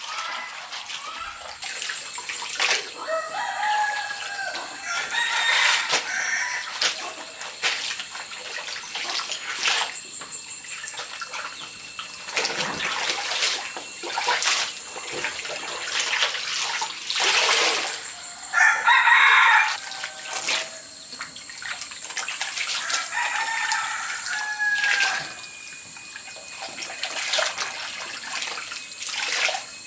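A rooster crowing three times, each call about two seconds long, over a steady high-pitched insect drone. Water sounds and scattered clicks run underneath.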